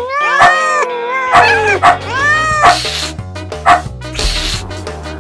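Kitten meowing several times, rising-and-falling calls, over background music with a steady beat.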